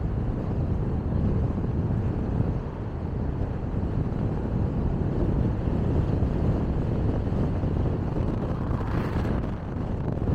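Steady low rumble of road and wind noise from a car driving along, with a brief hiss that swells and fades about nine seconds in.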